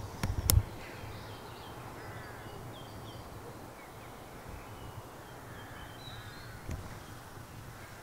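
Jackdaws calling faintly: a few short calls in two bunches about four seconds apart, with tiny higher chirps of small birds in between. A couple of thumps near the start.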